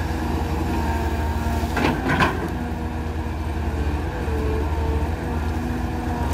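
Caterpillar tracked excavator's diesel engine and hydraulics running steadily under load as the arm lowers the bucket into mud, with two short sharp knocks about two seconds in.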